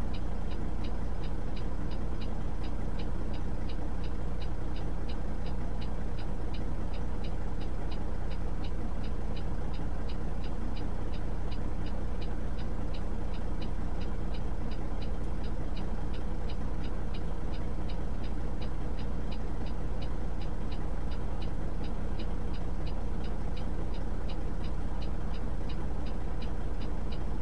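Idling truck engine, a steady low drone, with an even ticking several times a second over it.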